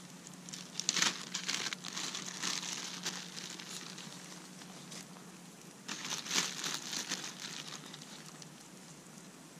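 Clear plastic zip-top bag crinkling in the hands as shredded cheese is shaken out of it, in two spells of rustling: one starting about a second in and another about six seconds in.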